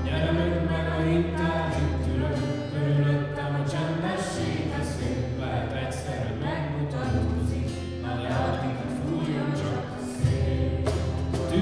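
Voices singing a worship song together with band accompaniment, held low bass notes shifting every few seconds under the melody.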